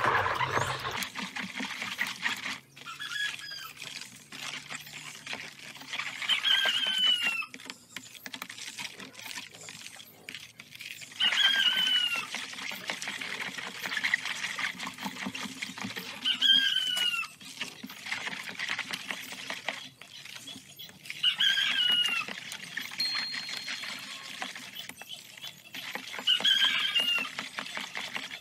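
Soapy water swishing and slopping as a plastic spatula stirs it in a plastic basin. A short falling call, likely a bird's, repeats about every five seconds.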